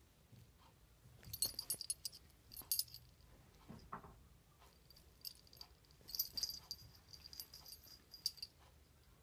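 Cats moving about, with several short bursts of light metallic jingling and clicking and one brief animal call about four seconds in.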